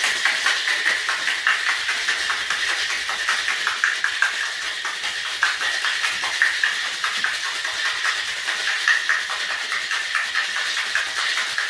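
Ice rattling inside a metal Boston shaker as a cocktail is shaken hard: a fast, even clatter of cubes against the tin, kept up without a break.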